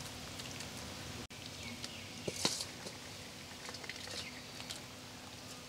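Light patter and scattered small ticks of a crumbly fried topping being tossed by hand from a steel bowl onto egg batter in a wide steel plate, with one louder rattle about two and a half seconds in.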